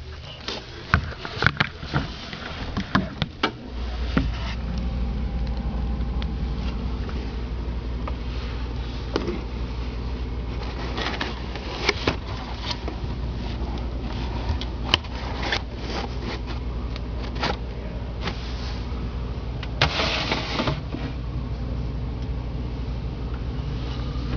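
A steady low hum sets in about four seconds in and runs on, under scattered clicks and rustling from things being handled inside a refrigerator, with a louder rustle near the end.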